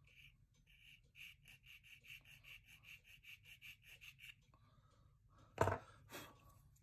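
A small hand tool scraping back and forth along the seam of a plastic model-kit part, in even quick strokes of about four a second. Near the end come two short knocks as the part is handled.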